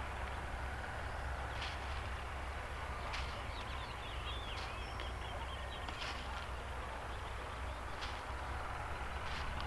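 Open-field ambience: a steady low rumble under a faint hiss, with soft knocks about every second and a half and a few faint bird chirps near the middle.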